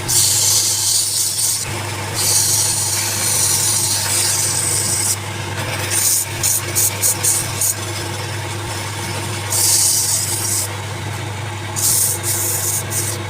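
Wood lathe running with a steady hum while a tool works the spinning wood in hissing, scraping passes, several of them short and quick about six to seven seconds in.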